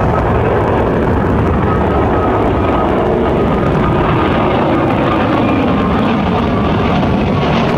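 Twin-engine Japan Airlines jet airliner climbing out at takeoff thrust: loud, steady jet engine noise with a faint high whine.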